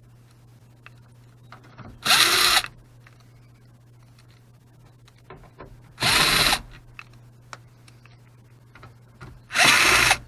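Power drill with a 6mm hex bit spinning out the factory door speaker's mounting screws in three short bursts about four seconds apart, the motor pitch shifting within each burst. Faint handling clicks come between the bursts.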